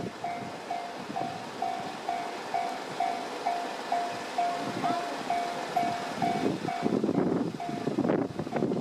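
Japanese level-crossing warning bell ringing in an even electronic 'kan-kan' pulse about twice a second, while an electric commuter train passes over the crossing, its rumble growing loud for the last couple of seconds.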